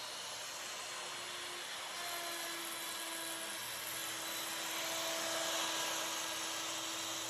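ShopSabre CNC router's spindle running at high speed as the machine cuts, a steady high whine over a hiss that swells slightly partway through.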